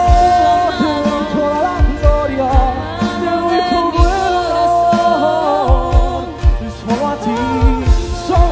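Live worship band playing a song: a woman singing lead over keyboard and a drum kit, with a steady kick-drum beat.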